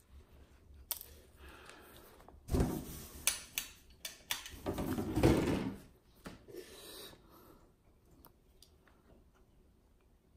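Handling noise on a workbench: a run of knocks, scrapes and rustles as small objects are moved and set down. It is loudest for a few seconds in the middle, then dies away to faint room tone.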